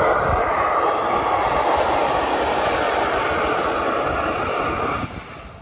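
Two-truck Shay steam locomotive blowing down its boiler: a steady rushing hiss of steam and water blasting out sideways from the blowdown valve, which cuts off sharply about five seconds in as the valve closes. Blowdown purges sediment-laden water from the bottom of the boiler.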